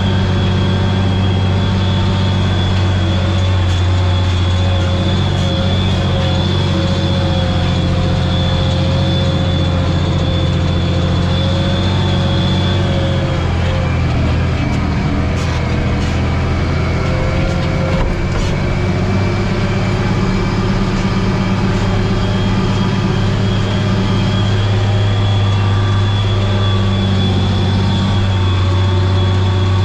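Tractor engine running steadily under load while pulling a harrow, heard from inside the cab, with a steady high whine over it. A little before halfway the engine note shifts and the whine drops out for about ten seconds, then both come back.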